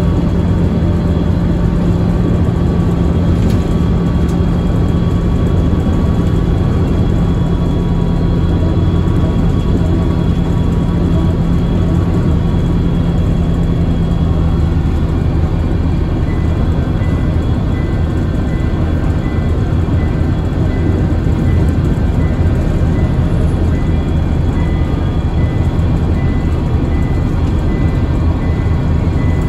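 Scania L94UB city bus under way, heard from inside the cabin near the rear: its nine-litre five-cylinder diesel engine and drivetrain running steadily with a deep hum, along with road and body noise. The engine note shifts about halfway through.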